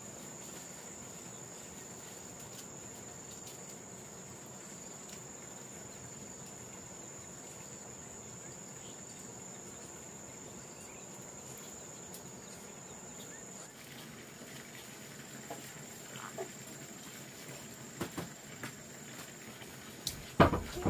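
Insects trilling on one steady high note, with a few scattered knocks in the last several seconds and a loud knock just before the end.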